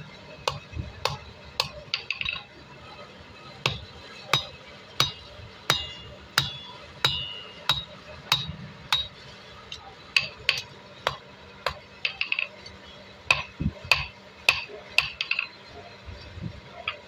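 Blacksmith's hammer striking steel, sharp blows with a short metallic ring, about one and a half to two a second, with brief pauses between runs of strikes.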